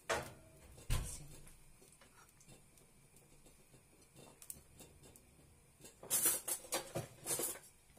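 Kitchen handling noises: two sharp knocks in the first second, then a few faint seconds, then a cluster of rustling, scraping noises near the end.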